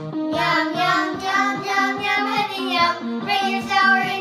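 Children singing a bouncy song over a backing track with a steady, evenly repeating bass line.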